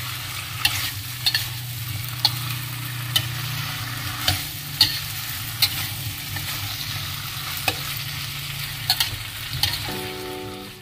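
Vegetables and tempeh frying in curry paste in a wok, sizzling steadily while a metal spatula stirs them, with sharp clinks and scrapes of the spatula against the wok at irregular moments. A few notes of music come in near the end.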